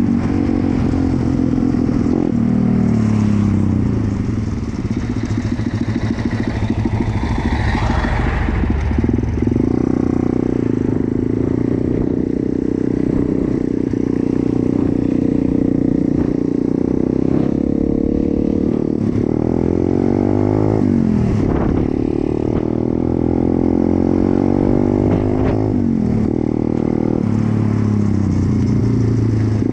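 Pit bike's small single-cylinder four-stroke engine running under way. The engine note holds fairly steady for the first half, then rises and falls several times in the second half as the throttle is worked.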